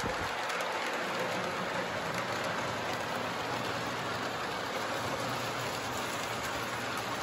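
Model trains running on their tracks: a steady, even rolling hiss.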